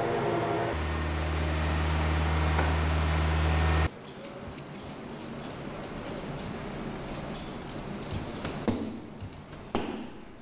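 An electric food-processing machine, used for grinding and mixing panda dumpling ingredients, runs with a steady, loud low hum. About four seconds in, the hum cuts off suddenly and gives way to scattered light clinks and clattering of utensils or containers being handled.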